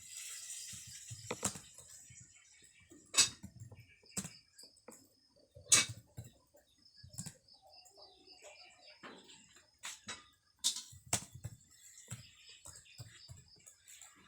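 Computer keyboard keys pressed at an irregular, unhurried pace: scattered sharp clicks with softer low thumps between them.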